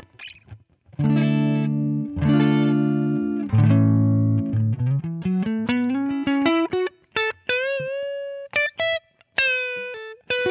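Electric guitar played through an iSet Hot Distortion pedal, a thick, saturated gain distortion. It rings out held distorted chords, then a quick climbing run of single notes and a bent lead note.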